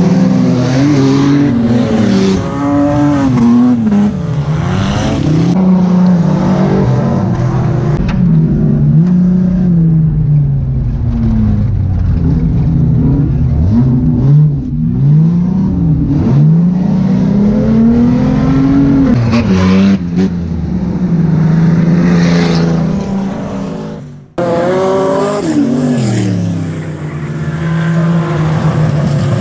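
Racing saloon car engines on a dirt track, repeatedly revving up and easing off. Through the middle stretch the engine is heard from inside the car's cabin, and near the end from the trackside again after a sudden cut.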